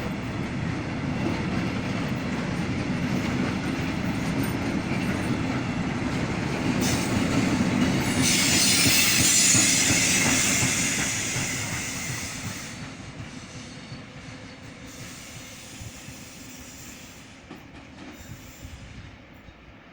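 A train passing on the rails: a steady rumble of wheels on track that grows louder and picks up a high squealing hiss partway through, then fades as the train moves off.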